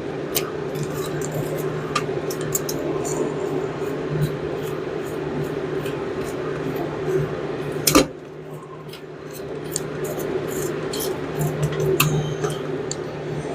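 Hand tools and metal parts clinking and tapping as bolts and brackets are fitted on a car, with one sharp knock about eight seconds in, over a steady low hum.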